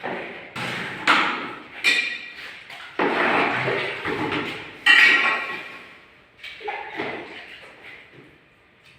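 Irregular knocks and clinks of hard tile and tools being handled and tapped during marble tile laying, about half a dozen in all, several with a short ring. They fade out near the end.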